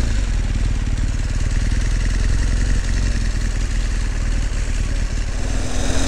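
Motorcycle engine running steadily while the bike is ridden, with a low rumble under a constant rush of wind and road noise on the bike-mounted microphone.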